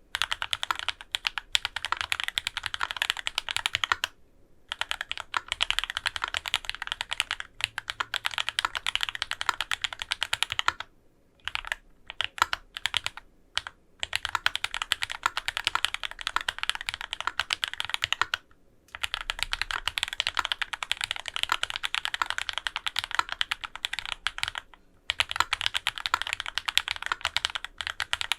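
Fast typing on a Dolphin 2021 custom mechanical keyboard with lubed Thicthock A linear switches, an aluminium plate, foam dampening and GMK keycaps. The keystrokes come in quick runs of several seconds with brief pauses between them, and a stretch near the middle has only scattered single presses.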